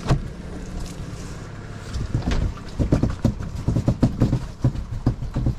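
A sharp knock, then from about two seconds in a run of irregular knocks and thumps, over the steady low hum of an engine running.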